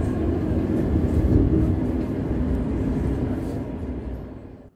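Quito Metro train heard from inside the passenger car as it runs through the tunnel: a steady low rumble with rail and running noise. The sound fades away near the end.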